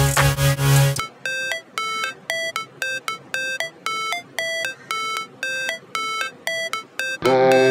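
Background music: a bass-heavy beat drops out about a second in, leaving a sparse run of short high notes at about three a second. The full beat comes back near the end.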